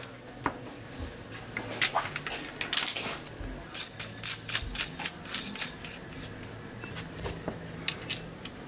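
Irregular light clicks and clinks of metal parts being handled as a steel coil spring and its hardware are fitted onto a PUSH ElevenSix rear shock, busiest about two to three seconds in.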